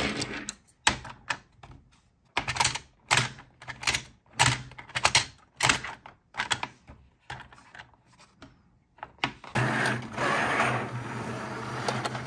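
Hard plastic toy pieces clicking and clacking as a toy car and the parts of a plastic race-track playset are handled, in a run of short, separate clicks. About nine and a half seconds in, the clicks give way to a steadier, continuous rustling scrape.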